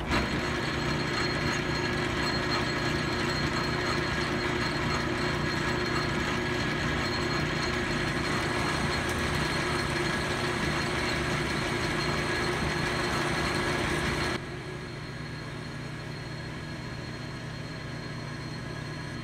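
Metal lathe running under power, turning a cut of about twenty thousandths on steel bar stock: a steady mechanical hum with a whine in it. It drops noticeably in level about three-quarters of the way through and cuts off near the end.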